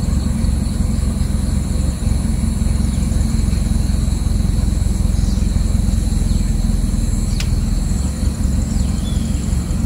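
Steady low rumble of a moving car, with wind buffeting the microphone, while filming from the car. Faint steady high-pitched tones run above it.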